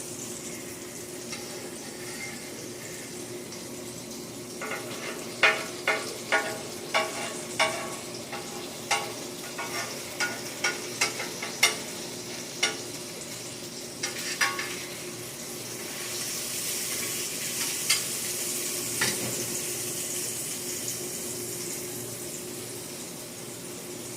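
Burgers and eggs sizzling on a cast iron stovetop griddle over a steady low hum. About a dozen sharp clacks of a utensil on the griddle come in a run through the first half, and the sizzle grows louder and brighter past the middle.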